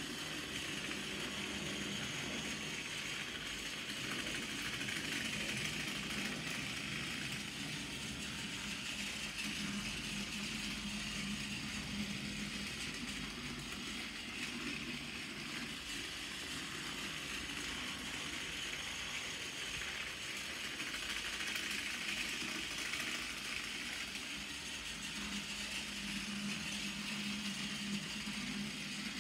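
Battery motor of a Tomy Toby toy tram engine whirring steadily as it pulls a toy coach and a truck around a plastic track, the hum swelling and easing a little as it laps.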